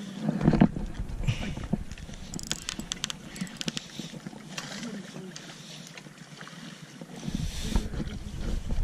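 Wind buffeting a body-worn camera microphone, with sea water washing against the jetty rocks. The rumble is heaviest at the start and again near the end. About two and a half seconds in comes a quick run of light clicks and handling noise from the spinning reel.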